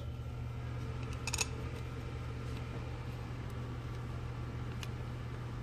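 A steady low hum, with a couple of faint light clicks of small screws being fitted to the top of a two-barrel carburetor.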